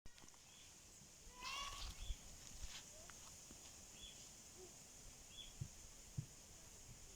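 Quiet outdoor ambience: one short animal call with a wavering pitch about one and a half seconds in, a few faint high chirps spaced through, and a steady high hiss.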